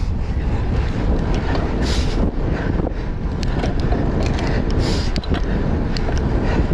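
Wind rumbling on the microphone of a bicycle ride, a steady low buffeting, with a few short hissing bursts about two and five seconds in that fit hard breathing on a climb.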